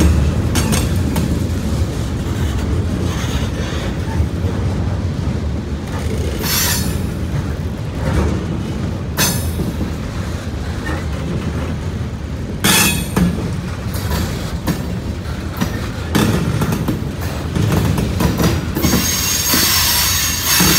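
Freight cars of a slow CSX train rolling past close by, coil steel cars then covered hoppers: a steady low rumble of wheels on rail, broken by sharp clanks and squeals every few seconds. A harsh, high wheel squeal rises near the end.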